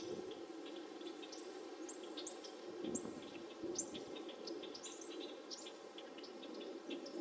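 Small wild birds chirping repeatedly, short high notes several times a second, some sweeping down in pitch, over a steady low background hum.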